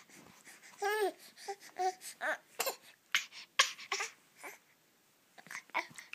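Young baby fussing: one longer wavering cry about a second in, then short broken cries and whimpers, with a few sharp clicks mixed in and a brief lull near the end.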